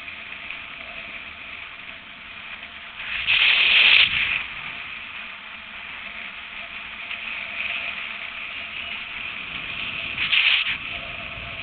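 Steady rushing hiss of wind across the microphone and longboard wheels rolling on asphalt at speed. It swells loudly twice, once about three seconds in and again briefly near the end.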